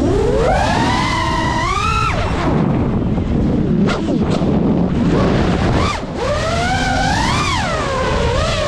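GEPRC Mark5 FPV quadcopter's brushless motors whining, the pitch rising and falling with the throttle as it swoops, over a steady low rumble of wind noise. The whine fades for a few seconds in the middle and then climbs again.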